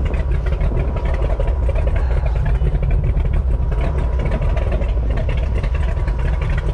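Wind buffeting the camera microphone on an open boat: a heavy, uneven low rumble, with a faint steady high tone under it.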